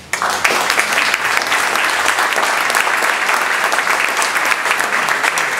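Audience applauding: many people clapping together, starting suddenly and holding steady.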